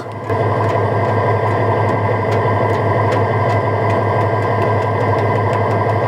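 Fishing boat's engine running steadily: an even, low drone.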